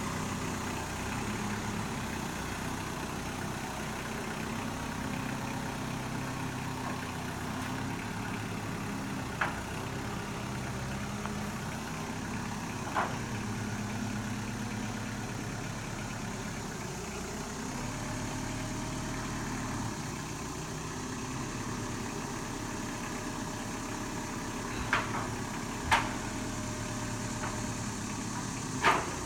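Kubota M59 backhoe's diesel engine running steadily, its pitch shifting slightly now and then, with five sharp clanks: two single ones, then two close together about a second apart near the end, and a last one just before the end.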